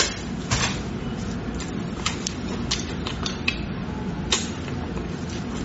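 Eating sounds of a person gnawing a braised pig tail: wet lip smacks, sucking and chewing that come as irregular sharp clicks a few times a second, over a steady low hum.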